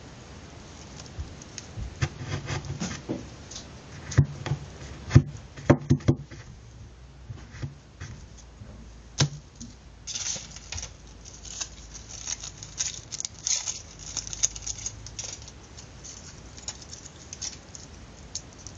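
Hands handling a small paper tube and a nail on a sheet of paper: irregular taps and clicks, with a cluster of sharper knocks about four to six seconds in, then scattered rustling of paper.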